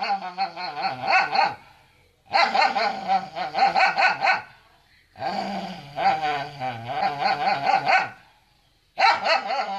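A dog vocalizing in long, wavering, pitched bouts of a few seconds each. One bout ends about two seconds in, two more follow after short pauses, and a fourth begins near the end.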